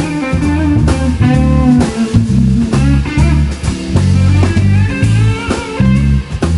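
Live band playing: electric guitar lines over a heavy, moving bass guitar line and a drum kit keeping time.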